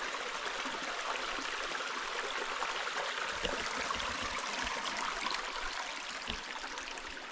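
Steady rush of a stream flowing over rocks, with a few faint low thumps in the middle.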